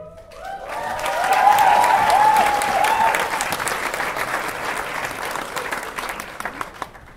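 Audience applauding and cheering: the clapping swells about a second in, with high whoops over it for a couple of seconds, then slowly thins to scattered claps near the end.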